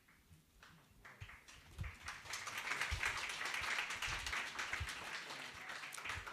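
Audience applauding in a hall, with many hands clapping. It swells about two seconds in and tapers off near the end.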